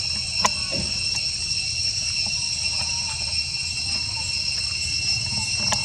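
Steady insect chorus, a continuous high-pitched drone in several bands, over a low rumble, with a few sharp clicks about half a second in and near the end.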